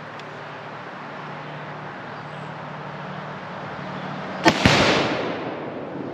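.308 rifle shot about four and a half seconds in, followed at once by the boom of a one-pound tannerite charge going off, its rumble dying away over about a second and a half.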